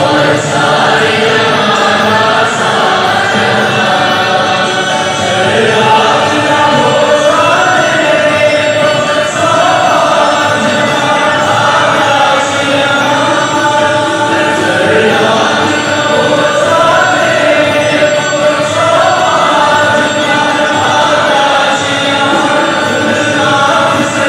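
A group of voices singing together in a slow, chant-like melody.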